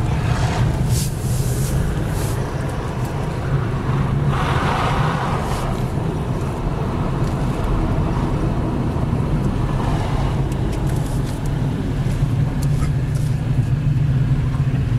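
Car driving downhill, heard from inside the cabin: a steady low rumble of engine and tyres on the road, with a short swell of road noise about four to five seconds in.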